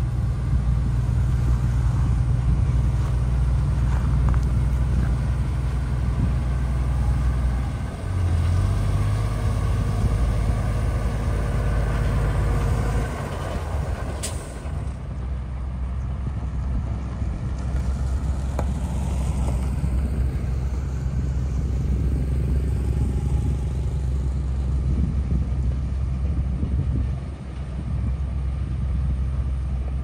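Komatsu motor grader's diesel engine running steadily as it spreads gravel, a deep low rumble. A single sharp click about fourteen seconds in.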